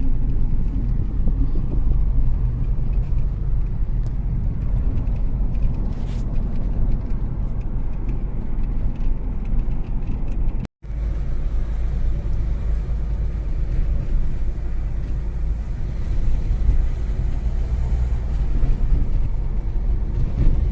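Car driving, heard from inside the cabin: a steady low rumble of engine and tyres on a broken road. The sound cuts out completely for an instant about halfway through.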